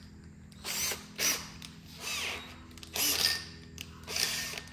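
Power drill run in about five short bursts, its motor pitch gliding up and down with each trigger pull.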